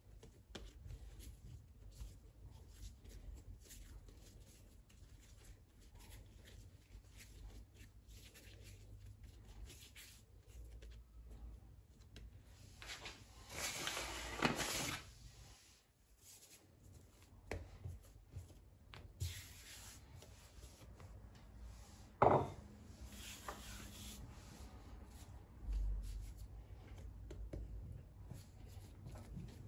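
Quiet kitchen work sounds: hands rubbing and handling things on a work surface, with small clicks and light knocks. A louder rustle comes about halfway through, and a sharp knock about two-thirds of the way in.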